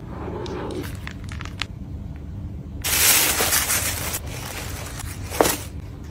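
Tissue paper rustling as it is unfolded in a gift box, loudest in a burst lasting about a second and a half around three seconds in, with one sharp tap about five seconds in, over a low steady hum.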